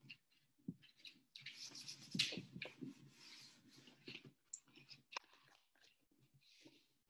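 Hands rubbing and pressing across a sheet of painted paper: a faint dry rustling and scraping with small crinkles and clicks, heaviest for about three seconds in the middle.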